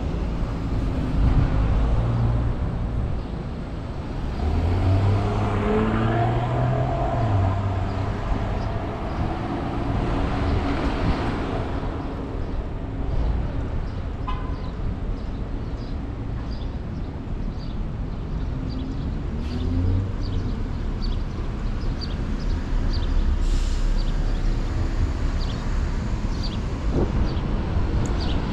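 Street traffic heard from a moving bicycle: a steady low rumble of road and wind noise, with motor vehicles passing, loudest in the first half. Light ticking comes in over the second half.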